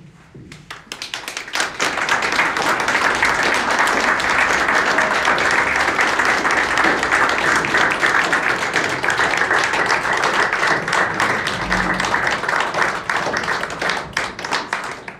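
Audience applauding: many hands clapping, building up over the first two seconds, holding steady, then thinning out near the end.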